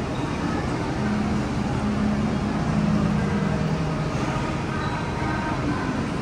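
Steady whirring of a cotton candy machine's spinning head, with a faint murmur of voices.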